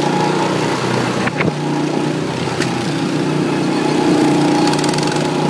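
Small go-kart engine running steadily at speed, heard from on board the moving kart.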